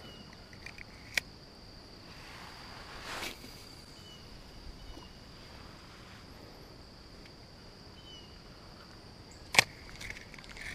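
Spinning reel and rod being handled for a cast: a sharp click about a second in, a soft swish around three seconds, and another sharp click near the end as the reel handle is worked. A steady high-pitched drone runs underneath.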